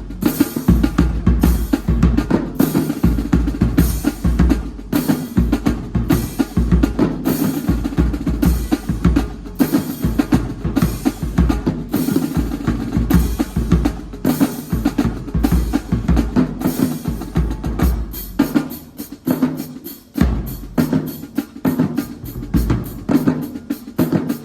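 Drums playing a driving beat, with bass drum and snare strokes. The strokes come quicker and closer together in the last several seconds.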